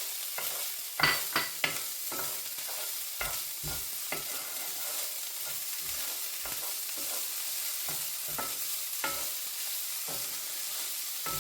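Garlic, chilli and ginger frying in oil with caramelised onions, sizzling steadily, while a utensil stirs the pan, scraping and knocking against it at irregular moments. The loudest knocks come about a second in.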